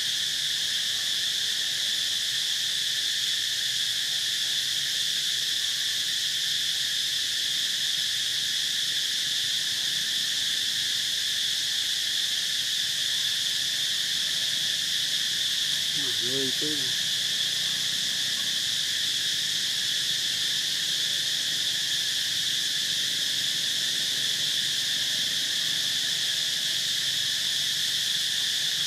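A steady, unbroken high-pitched insect chorus droning without pause. A single short, low pitched call sounds once a little past halfway.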